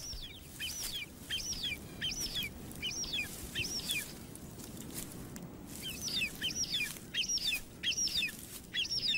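Wedge-tailed eagle chicks begging in the nest: a run of short, high, downward-sliding cheeps, about two a second, with a pause of a second or so midway.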